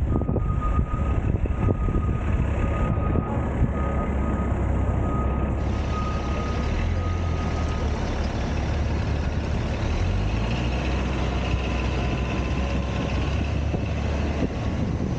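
Steady city traffic and road noise with a heavy low rumble of wind on a camera on the roof of a moving car. A thin high tone sounds for about the first half, then stops.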